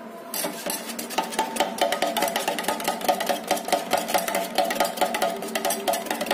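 Background music: after a held synth chord fades, a fast percussive beat of short plucked or struck notes starts about a third of a second in and keeps an even rhythm.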